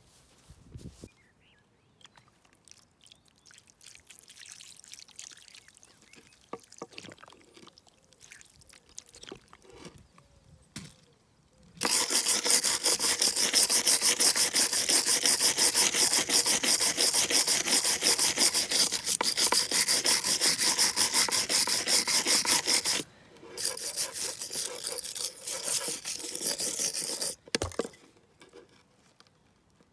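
Rust being scraped off old steel pliers: a harsh, fast, even scraping that starts suddenly about twelve seconds in and runs loud for about eleven seconds, then carries on more quietly for a few seconds before stopping. Before it there are only faint handling knocks and rustles.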